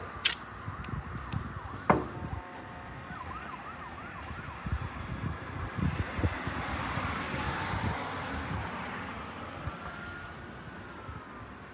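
A distant emergency-vehicle siren wailing over street traffic, swelling and fading over several seconds. Two sharp clicks come in the first two seconds.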